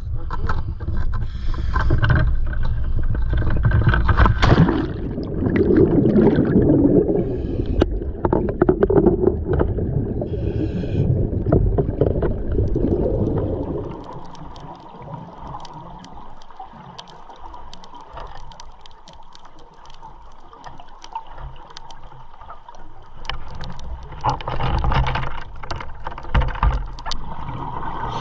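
Boat on the water: wind and water noise with a low rumble, dropping to a quieter, steady hum about halfway through and swelling again near the end.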